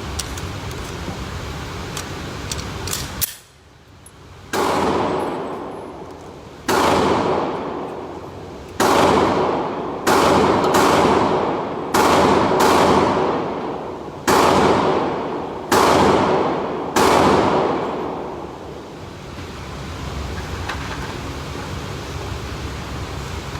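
A series of about eight to ten gunshots from a firearm at a shooting range, fired one to two seconds apart, each echoing and fading out. The shots begin a few seconds in and stop about two-thirds of the way through.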